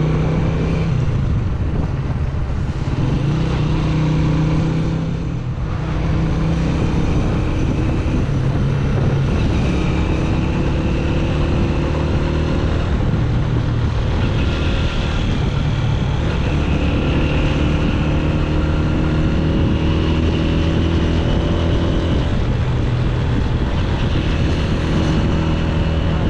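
Motorcycle engine running under way, its note stepping up and down with throttle and gear changes and easing off briefly about five seconds in, over steady wind and road noise.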